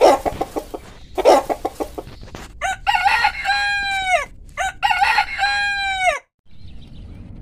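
Chickens clucking in two fast runs, then a rooster crowing twice, each crow a long cock-a-doodle-doo that falls in pitch at the end.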